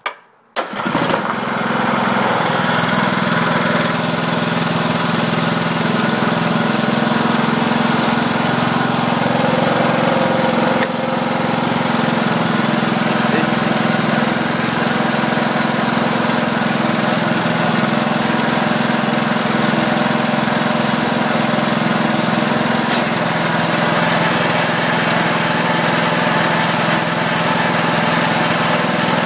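Riding lawn mower engine started with the starter: it catches about half a second in, then runs steadily.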